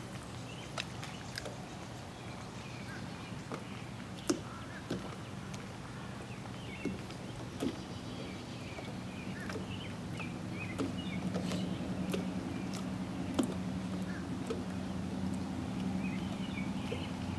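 A distant engine droning steadily, growing louder from about halfway through, with small birds chirping and a few sharp clicks scattered throughout.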